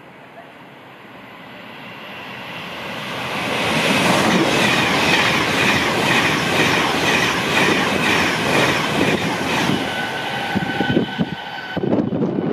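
High-speed express passenger train passing through the station at speed, growing louder as it approaches and then a loud rushing run with a rapid, regular clatter of its wheels over the rail joints. The sound changes abruptly near the end.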